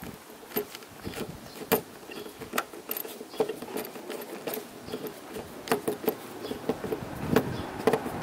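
Screwdriver turning a small screw on the antenna base's cable terminal: irregular small metallic clicks and ticks of the bit and screw, several each second.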